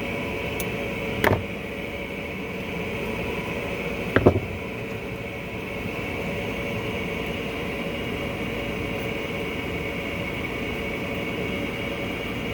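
Two short metallic clicks, about a second in and about four seconds in, as a tool works at the stuck, pressed-in choke butterfly plate of a small-engine carburetor. A steady mechanical hum runs underneath.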